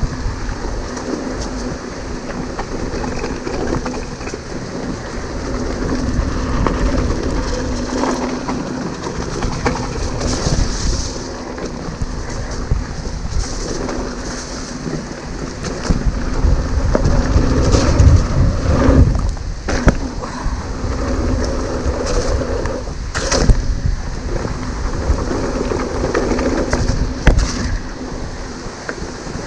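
A hardtail mountain bike riding fast down a dirt trail: wind rushing over the microphone and a constant rumble and rattle from the tyres and bike. Sharp knocks from bumps and landings come a few times, the loudest a little past halfway and near the end.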